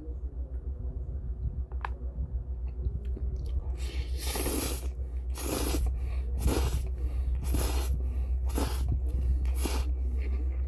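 A person slurping cold spicy bibim noodles off chopsticks: about six loud slurps, roughly one a second, beginning about four seconds in.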